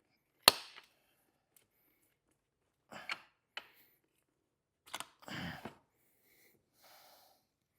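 Small metal parts of a motorcycle's foot shift shaft and its retainer spring clicking and rattling as they are fitted by hand. There is one sharp, loud click about half a second in, a couple of short clicks around three seconds, and a brief scraping rattle a little after five seconds.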